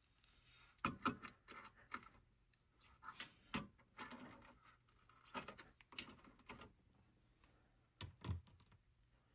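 Faint, irregular clicks and taps of small electronic parts being handled as a plug-in FRAM adapter board is worked out of its socket on an oscilloscope mainboard, with a duller knock near the end.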